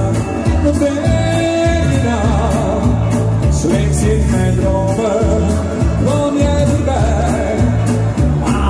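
A singer performing over loud amplified pop music with a steady beat and bass line, the voice wavering with vibrato on held notes.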